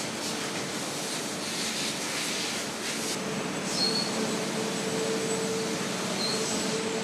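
Automated sand-core handling machinery in an engine-block foundry running: a steady mechanical hum with a constant tone, swells of hiss in the first three seconds, and two brief high chirps about four seconds in and again near six.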